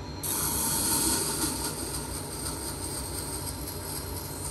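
Tormek T4 water-cooled sharpener's grindstone, graded to 1000 grit, grinding a steel blade held in the jig: a steady hiss of steel on wet stone starts suddenly about a quarter second in over the low hum of the running motor.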